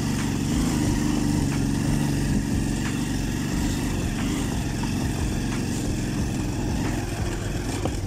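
Motorcycle engine running steadily under load while climbing a steep uphill dirt track, the bike straining to pull.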